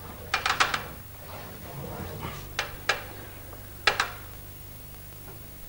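Small hard objects clicking and tapping: a quick run of four clicks under a second in, a soft scrape around two seconds, then three more single clicks.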